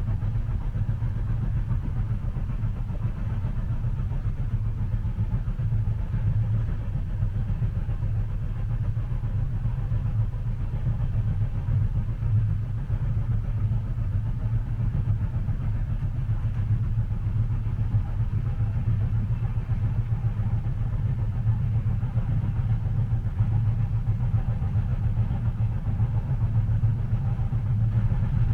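Steady low rumble of a moving train heard from inside a passenger carriage, even and unchanging, with no distinct wheel clicks.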